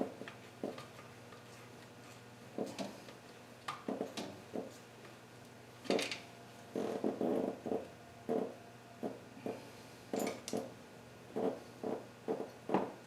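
Metal hand tools clinking and knocking against engine parts while oil pan bolts are worked loose. The taps come irregularly, some singly and some in quick runs of several.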